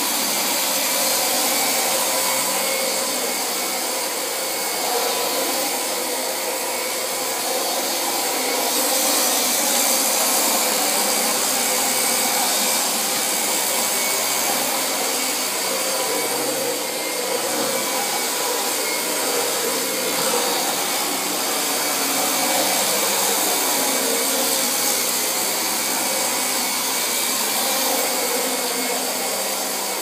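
Vacuum cleaner running steadily at a constant level, an even motor-and-airflow hiss with a faint steady whine.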